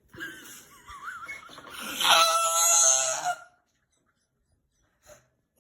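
A young boy's voice whining, then a loud, high-pitched drawn-out wail from about two seconds in that stops after a second and a half.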